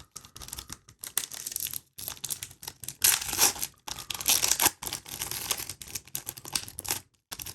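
Wrapper of a basketball card pack being torn open and crinkled: an uneven run of crackling rustles, loudest about three seconds in.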